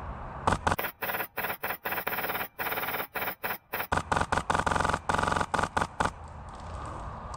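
Airsoft gun firing a rapid string of short bursts for about five seconds, then stopping.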